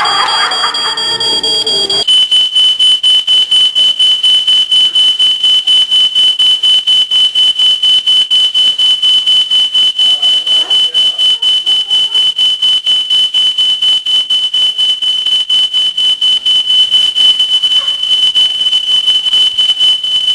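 Smoke alarm going off, set off by smoke: a loud, high-pitched beeping on one steady pitch, several beeps a second, which takes over from music about two seconds in.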